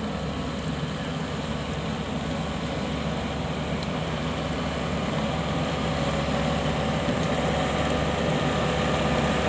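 Kubota DC95 crawler combine harvester's diesel engine running steadily as the machine travels on its tracks, growing gradually louder as it comes closer.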